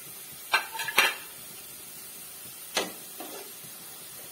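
Metal slotted spatula clinking and scraping against a plate of fried chips: a quick cluster of clinks about half a second in, and another clatter near three seconds.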